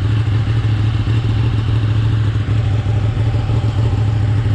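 Kawasaki ZX-6R sport bike's inline-four engine running steadily at a standstill, with an even low hum and no revving.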